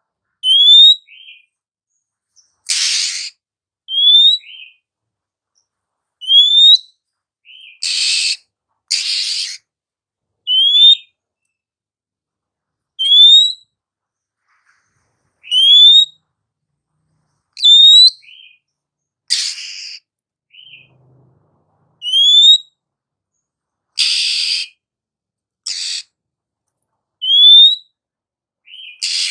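Female Oriental magpie-robin calling: a short rising whistle repeated every two to three seconds, mixed with several harsh rasping churrs.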